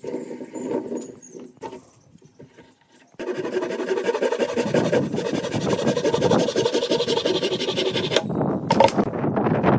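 Hand saw cutting through a pine dowel end in fast, even back-and-forth strokes, starting about three seconds in, with a short break near the end. Before it comes a brief wooden creaking and rubbing.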